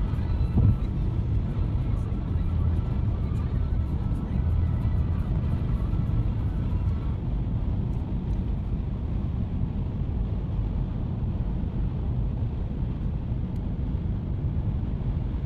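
Steady low rumble of road and tyre noise with engine drone, heard from inside a car cruising on a freeway.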